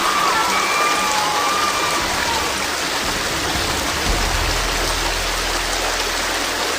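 Steady rush of water. A few short chirping glides sound over the first two seconds, and a low hum comes in about four seconds in.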